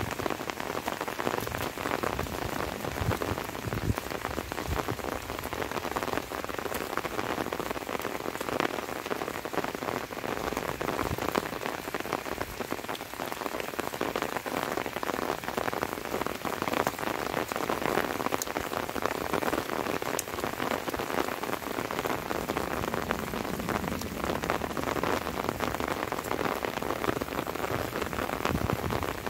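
Light rain falling steadily, a dense, even patter of countless drops striking surfaces.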